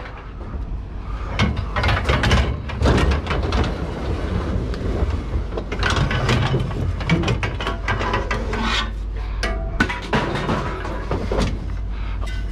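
Scrap being handled and tossed onto a pile: many irregular knocks and clanks, over a steady low hum.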